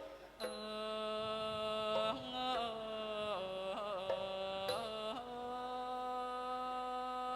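Thai classical ensemble music: one sustained melodic line held on long notes, with sliding ornaments between notes partway through.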